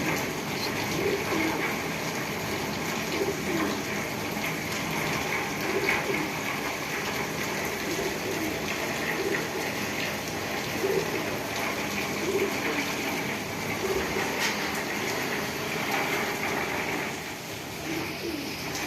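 Steady heavy rain with the rush of running water.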